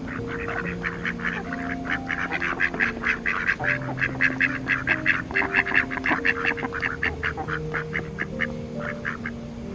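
A group of ducks quacking in a rapid, continuous series, several calls a second, loudest in the middle and thinning out near the end, over background music with held low notes.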